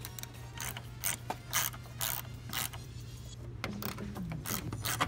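Hand ratchet clicking in short, uneven runs, roughly two clicks a second, as it backs out T30 Torx screws from the bumper support, over a steady low hum.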